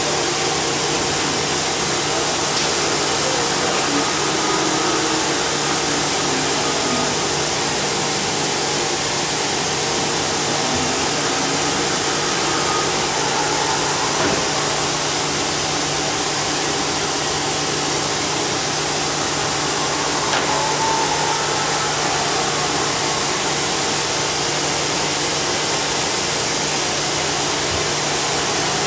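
Hitachi Seiki HG630 horizontal machining center running: a steady hum and hiss from the machine, with faint whines rising and falling as the axis drives move the spindle head.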